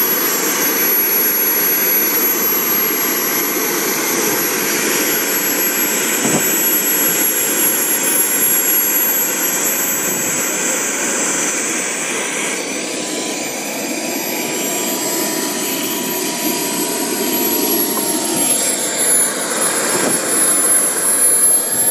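Wren MW44 model turboshaft turbine running steadily: a continuous rushing jet noise with a thin, high-pitched whine on top, its pitch shifting slightly about halfway through.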